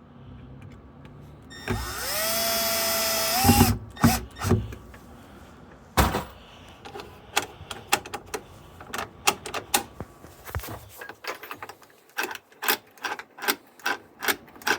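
Cordless drill-driver spinning up with a rising whine and running steadily for about two seconds, driving in a screw for the lock; then a few knocks and a long run of sharp clicks.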